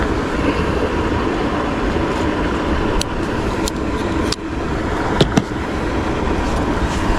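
Steady wind rumble and hiss on the microphone, with a few short sharp clicks between about three and five and a half seconds in.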